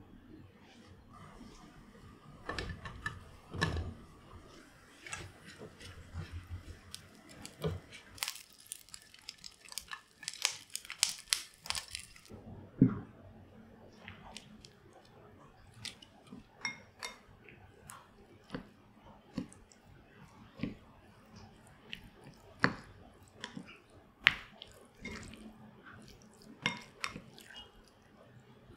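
Small kitchen knocks and taps as food is prepared. From about halfway a plastic rice paddle taps and scrapes against a ceramic bowl as warm rice is stirred together with margarine, giving a string of separate light clicks.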